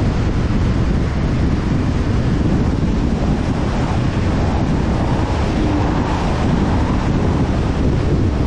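Wind buffeting the microphone of a camera mounted on the bonnet of a moving car, mixed with road noise: a loud, steady rushing with no let-up.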